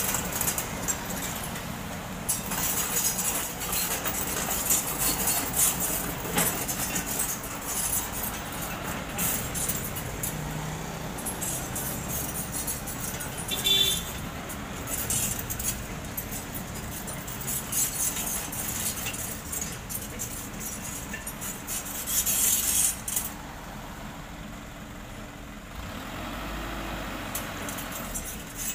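Road traffic dominated by a Mitsubishi Fuso dump truck's diesel engine running as the truck turns and drives off, with motorcycles passing. A short high beep sounds about halfway through, and the truck's engine note rises near the end as it pulls away.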